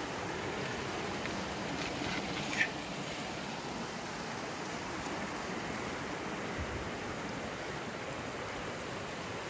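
Steady rush of water over the rocks of a shallow river's rapids. A single short, high-pitched sound cuts in about two and a half seconds in.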